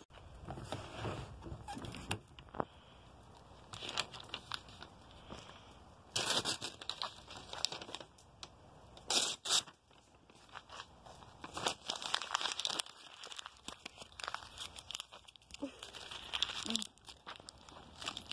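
Notebook paper being torn and crumpled in several short bursts, with a wood-and-paper fire crackling between them.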